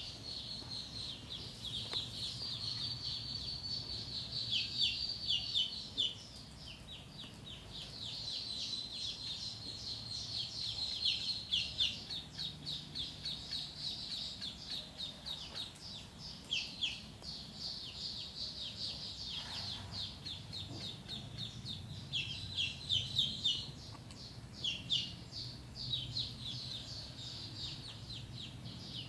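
A small group of ducklings peeping almost without pause: rapid, high-pitched cheeps, several a second, with clusters of short falling calls here and there.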